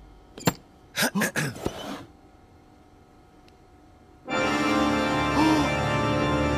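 A sharp click and a few short noisy sound effects, then, about four seconds in, a loud sustained organ chord comes in and holds: a dramatic cartoon music sting.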